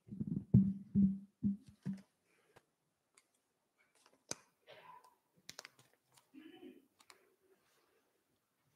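A voice briefly for about the first two seconds, then sparse faint clicks and short rustles of papers being handled at a lectern microphone.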